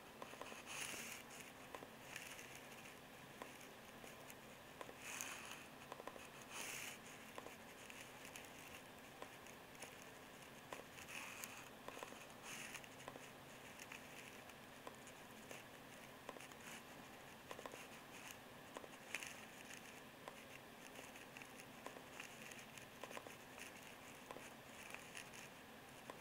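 Near silence: faint room hiss with scattered soft clicks and a few brief rustles.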